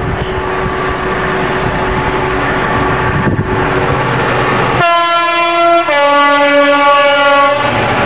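Freight train running through, then its two-tone horn sounds about five seconds in: a high note for about a second, then a lower note for about a second and a half. The train's rolling noise comes back after the horn.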